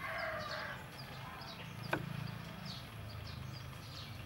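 A rooster's crow trails off at the start. Small birds chirp throughout. About two seconds in, a single sharp tap of a kitchen knife on a wooden chopping board cuts through broccoli stems.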